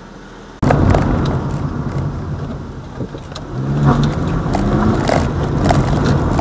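Car driving, heard inside the cabin through a dash cam: steady road and tyre rumble with engine, starting abruptly after a short quiet stretch, with a humming engine note coming up about halfway through and a few small rattles.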